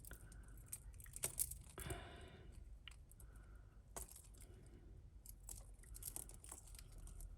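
Faint jingling and clinking of tangled jewellery chains and pieces being handled, with scattered small clicks of metal on metal.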